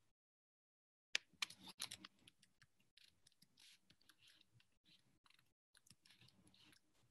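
Faint computer keyboard typing: a quick run of keystrokes about a second in, then scattered lighter key taps.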